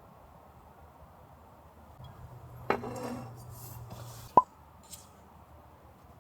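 Two light knocks from small objects being handled: the first, about two and a half seconds in, with a short ring; the second, a little later, a brief high clink. A faint low hum runs underneath for part of the time.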